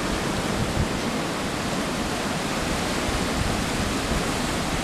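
Steady rush of shallow water washing over sand, with a low rumble of wind on the microphone.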